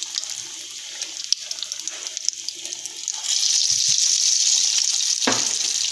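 Egg-battered doughnut frying in oil on low heat: a steady sizzling hiss with fine crackles, which turns louder a little past halfway.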